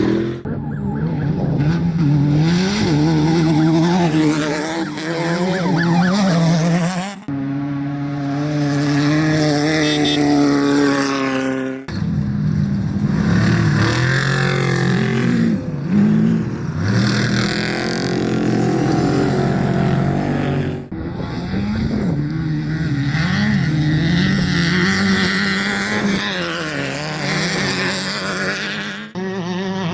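Off-road race vehicles' engines revving hard, the pitch climbing and dropping through the gears, heard as a string of separate clips with sudden cuts between them; in one clip, from about 7 to 12 seconds in, an engine holds a steady high note.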